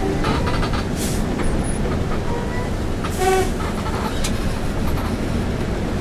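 Bus engine and road noise droning steadily inside the driver's cab. A short horn toot sounds about three seconds in.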